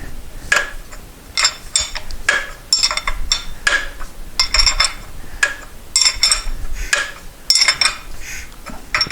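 Irregular sharp metallic clicks and clinks, often in pairs, as the 1973 Moto Guzzi Eldorado's engine is turned over by hand with a tool.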